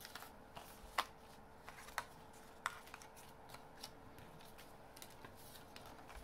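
Die-cut cardstock sentiment pieces being handled and popped out of their backing sheet: faint paper rustling with scattered light clicks, the sharpest about one and two seconds in.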